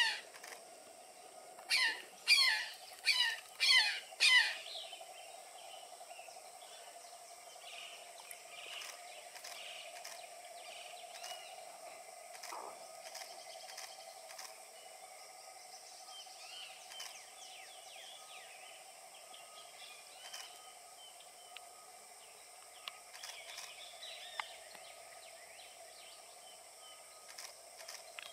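Brown jay calling: a run of five loud, harsh calls in quick succession over about three seconds near the start. After them come only faint chirps of smaller birds against a faint steady hum.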